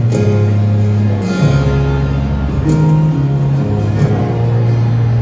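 A live band playing a slow instrumental intro through a stadium sound system, heard from the stands: sustained bass notes change every second or so, with held higher notes above.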